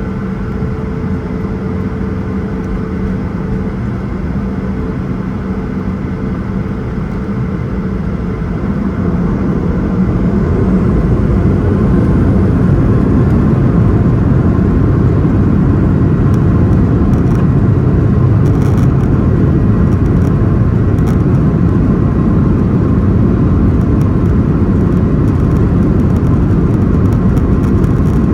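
The Boeing 737-900ER's CFM56-7B jet engines heard from inside the cabin: a steady rumble that swells about ten seconds in, with a faint rising whine, as the engines spool up to takeoff thrust, then holds loud and steady.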